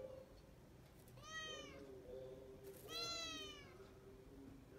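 A long-haired colourpoint cat meowing twice: a short meow about a second in, then a longer, louder one about three seconds in.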